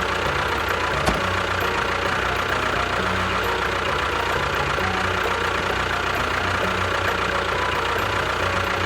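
An engine-like motor running steadily at an even pace, with a faint steady whine over a low pulsing drone.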